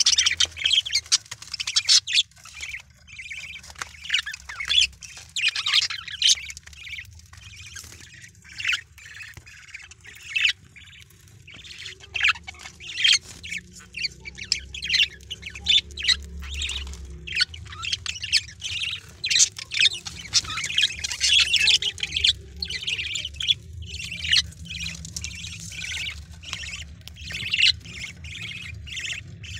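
Budgerigars inside a wooden nest box squawking and chirping, many short high calls one after another.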